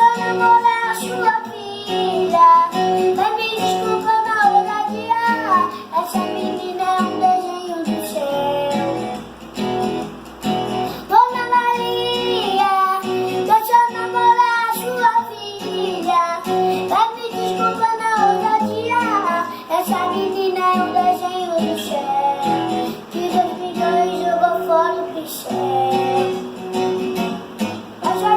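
A young child singing a sertanejo song over a backing track with guitar, in held, sliding sung phrases.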